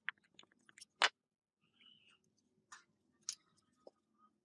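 Moulding sand being packed into a wooden casting flask: a wooden block taps the sand a few times, with one sharper knock about a second in. Brief scratchy sand sounds and scattered light clicks follow as gloved fingers work the sand.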